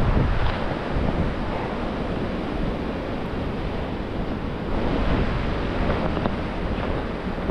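Blizzard wind gusting and rushing past the microphone, a steady roaring rumble that swells and eases slightly.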